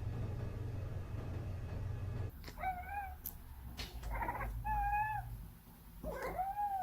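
A cat meowing: three long, drawn-out meows with a wavering pitch, starting about two seconds in. Before them there is only a steady low hum.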